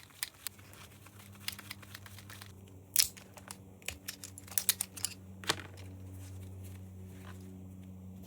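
Small clicks, taps and rattles of plastic and metal parts and hand tools as an electronic device is taken apart, the sharpest click about three seconds in and a quick run of them about halfway through, over a steady low hum.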